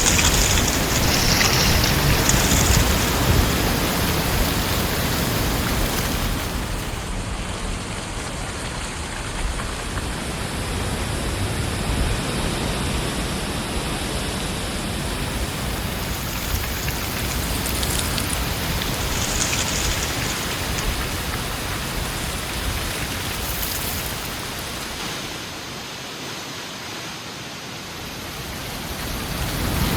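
Heavy windstorm: a steady rushing of strong wind that swells and eases in gusts, falling off a little before the end and then building again.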